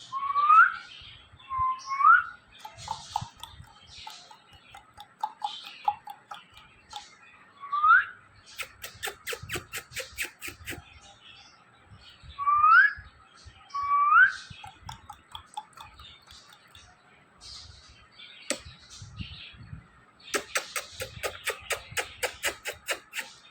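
Ringneck parrot whistling: five short upward-gliding whistles, the loudest sounds here, with two runs of fast, evenly repeated chattering calls and small chirps in between.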